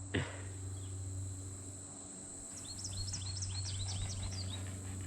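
A songbird sings a quick run of about a dozen short, downward-slurred notes starting about two and a half seconds in, over a steady high insect drone. A brief falling-pitched sound comes right at the start.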